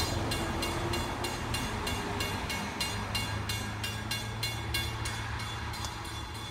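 Railroad grade crossing bell ringing in quick, even strokes, about three a second, over the low rumble of an approaching diesel train. The bell fades out near the end.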